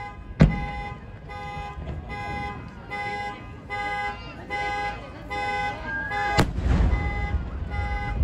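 Aerial firework shells bursting: a sharp bang about half a second in and a second bang about six seconds in, followed by a low rumble and crackle. Behind them, a pulsing beep repeats evenly a little under twice a second.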